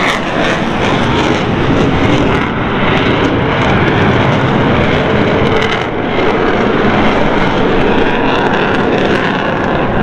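Loud, steady roar of a military jet aircraft's engines during an airshow flying display, with a slight dip about six seconds in.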